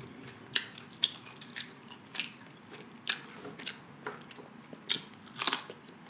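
Close-miked chewing of raw cucumber: irregular crisp crunches and wet mouth clicks, a few louder crunches near the end.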